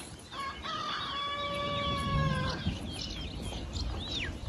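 A rooster crowing: one long held call of about two seconds. Small birds chirp throughout, and a high whistle falls in pitch near the end.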